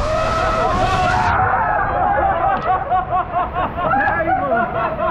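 Many people talking over one another and laughing. A rushing hiss behind them cuts off suddenly about a second and a half in.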